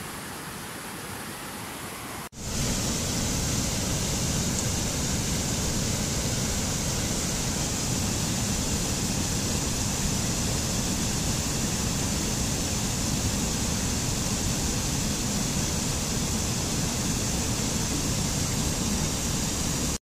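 Steady rush of fast-flowing water. A quieter hiss cuts off abruptly about two seconds in, and a louder, unbroken roar of water cascading over rocks follows.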